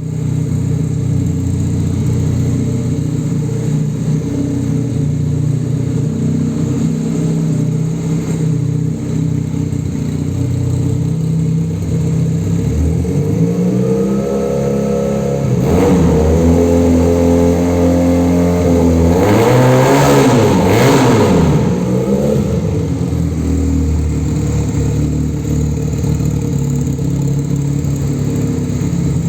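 Patagonian Eagle 250 motorcycle engine idling steadily, then revved up and held at higher revs about halfway through, blipped twice quickly, and settling back to idle for the rest.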